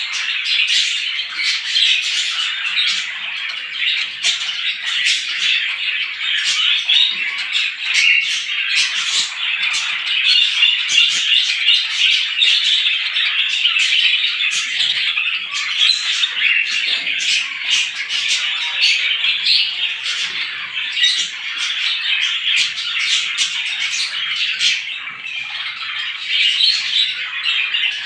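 A dense, continuous chorus of many small birds chirping and chattering together, with no pause, as in a morning gathering of a flock of small birds.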